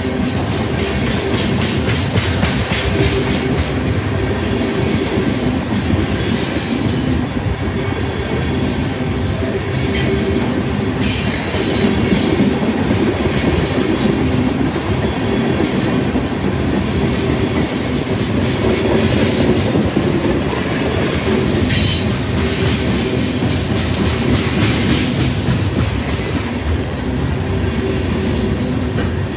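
A freight train's tank cars rolling past close by at speed: a steady loud rumble with the wheels clicking over the rail joints, and several short bursts of high-pitched wheel squeal.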